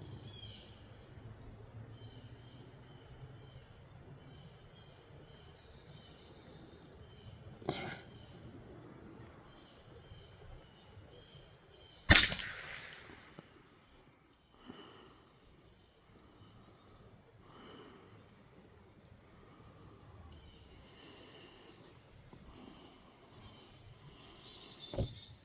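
A single .22 LR rifle shot about halfway through, a sharp crack with a short echoing tail, over a steady high-pitched insect buzz. A fainter click comes a few seconds before it.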